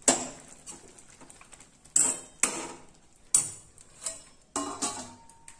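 A steel spoon clinking and knocking against a stainless steel pan while stirring cooked noodles: a series of sharp, irregularly spaced clinks.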